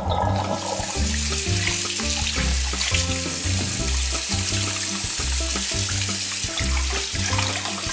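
Kitchen tap running steadily into a sink of water, its stream splashing onto a raw goose as it is rinsed. The water comes on about half a second in.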